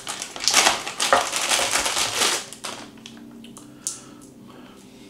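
Clear plastic bag crinkling and rustling loudly for about two and a half seconds as power cables are pulled out of it, then quieter cable handling with a single click.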